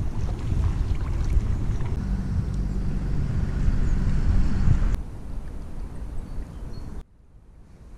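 Wind rumbling on the microphone over open water, with light water noise. It drops suddenly about five seconds in and falls again near the end, then slowly builds back.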